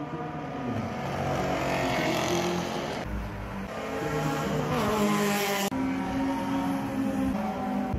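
Track-day cars' engines running hard as they pass on the circuit's straight, the engine note sliding down and then climbing as they accelerate. The sound breaks off abruptly twice, about three seconds in and again near six seconds, where clips are spliced together.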